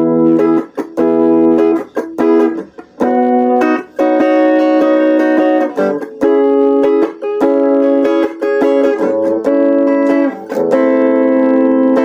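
Clean electric guitar played through a Mooer Yellow Comp compressor pedal: chords strummed and left to ring, a new chord every one to two seconds.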